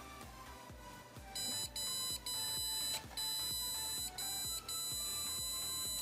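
Arduino distance-alarm buzzer beeping with a high steady tone in stretches of about half a second to a second with short gaps, starting about a second and a half in. The alarm is triggered by an object coming within about 5 cm of an HC-SR04 ultrasonic distance sensor.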